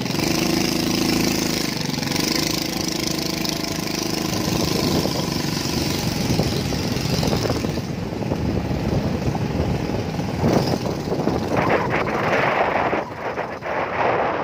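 Motorcycle engine running steadily while riding, with wind rushing over the microphone; after about eight seconds the engine sound gives way to gusts of wind noise.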